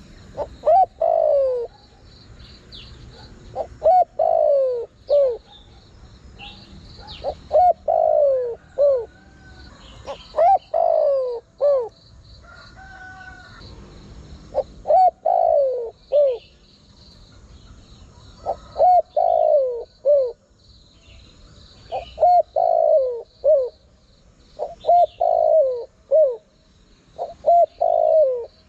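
Spotted dove cooing: about nine repeated phrases, one every three to four seconds, each a quick run of low, rising-then-falling coos.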